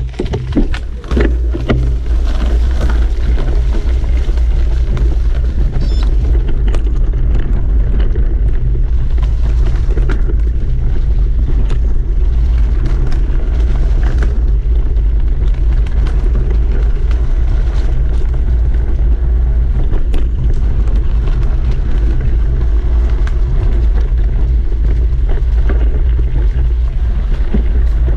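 Wind buffeting a GoPro's microphone during a fast mountain-bike descent: a loud, steady low rumble, with the scattered clicks and knocks of the bike rattling and its tyres running over the dirt trail.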